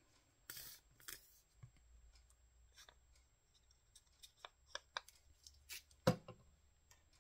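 Paper cutouts rustling and crinkling as they are handled and glued down, with small scattered clicks and taps, and one sharper thump about six seconds in.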